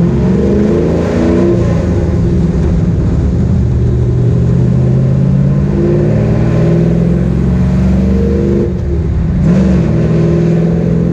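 LS1 V8 of a street-legal ex-NASCAR truck pulling hard under acceleration, heard from inside the stripped, caged cab. The revs climb steadily, fall sharply about three quarters of the way through as the T56 six-speed manual is shifted up, then climb again.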